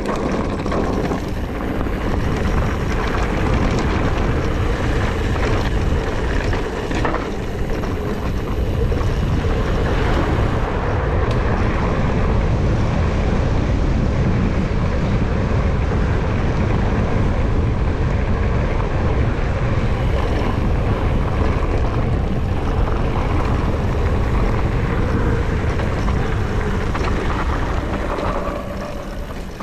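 Wind rushing over the microphone of a mountain bike descending a gravel track at speed, with the tyres rolling and rattling over loose stones. A steady, loud rush that eases a little near the end.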